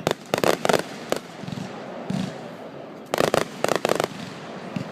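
Aerial fireworks bursting in a quick cluster of sharp bangs and crackles just after the start, with a single bang about a second in. Another rapid run of bangs follows about three seconds in.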